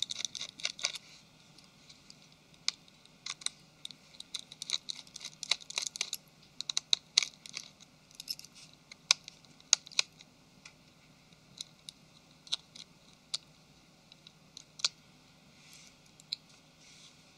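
A small precision screwdriver undoing the tiny screws in an LG Nexus 5's plastic frame: light, irregular clicks and ticks of metal on the screw heads and the case, with tiny screws tapped down onto the work surface.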